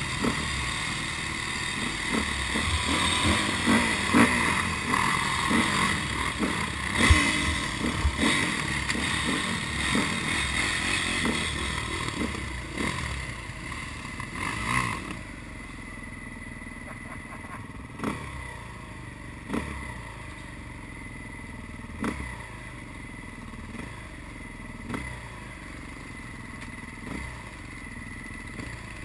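Off-road vehicle engines running. The sound is louder and busier for about the first half, then settles to a lower steady run with a few sharp knocks a couple of seconds apart.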